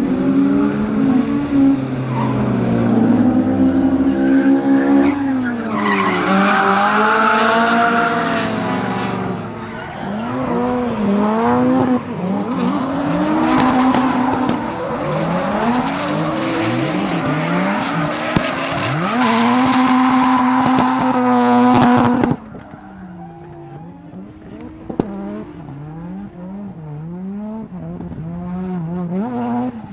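Drift car engine revving hard up and down through gear changes, with tyres squealing and skidding. About two-thirds of the way through it drops suddenly to a quieter car engine revving.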